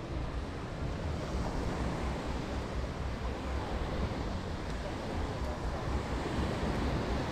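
Caribbean surf washing onto the beach in a steady wash of noise, with wind buffeting the microphone in a low, fluttering rumble.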